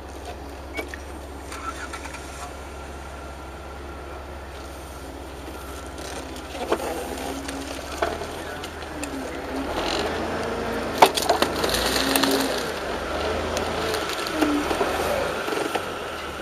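Jeep engines running at low revs with a steady low rumble, under faint distant voices. A few sharp knocks come in the second half, and the sound grows louder for a few seconds near the end.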